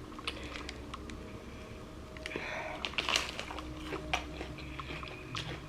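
Close-up mouth sounds of biting into and chewing a fast-food hash brown: scattered small crunches and clicks, busiest about halfway through.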